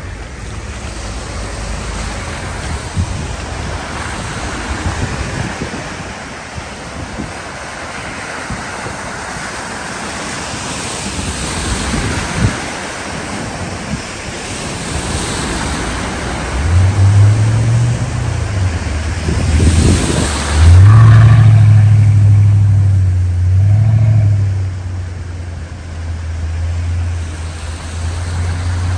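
Cars driving slowly through deep floodwater covering a road, their tyres sending up a steady rushing splash of spray. From a little past halfway, the low hum of a car engine passing close rises and falls, with a loud surge of splashing about two-thirds of the way through.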